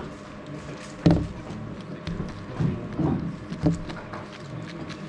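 A 3x3 speed cube being turned one-handed: a run of quick plastic clicks from the layer turns, with a louder knock about a second in.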